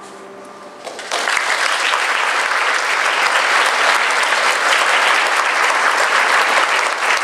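The last chord of a choir handbell ensemble rings and dies away. About a second in, the audience breaks into applause, which goes on steadily.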